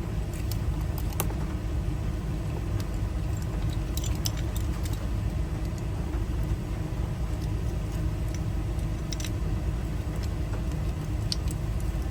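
Small metal clicks of a Ford door lock cylinder's parts being fitted together by hand, a few scattered taps, over a steady low rumble like an idling engine.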